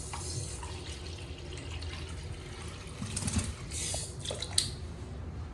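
Water running and splashing in a cat's bath, with a few sharper splashes about three to four and a half seconds in.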